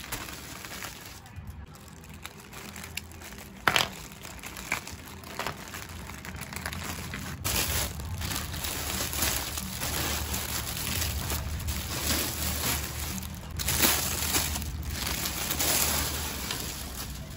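Plastic packaging crinkling and rustling as a mailer parcel is opened and a plastic-wrapped lumbar pillow is unwrapped by hand. A few sharp clicks come early, and the crinkling grows denser and louder about halfway through.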